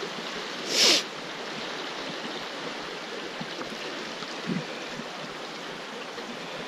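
River water rushing steadily below. About a second in there is a short, loud hiss.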